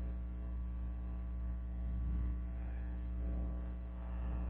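Steady electrical mains hum: a low drone with a row of evenly spaced overtones above it, even and unchanging.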